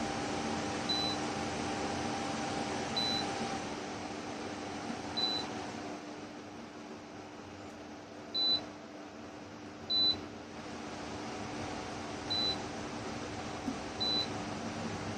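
Electric fan appliance running with a steady hum and airflow noise, while its controls give seven short high beeps, one every one to two seconds. The airflow noise drops after the third beep and picks up again just after the fifth, as the setting changes.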